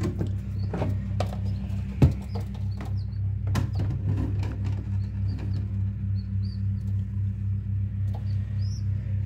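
Steady low hum of a Cleo 5 egg incubator, with plastic clatter and a sharp knock about two seconds in as the clear lid is lifted off. From about three seconds in, newly hatched pheasant chicks give faint, high, short peeps.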